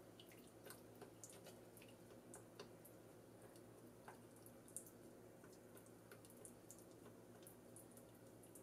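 Faint, scattered clicks and soft wet sounds of wooden chopsticks working miso paste in a metal ladle dipped into a pot of soup, over a low steady hum.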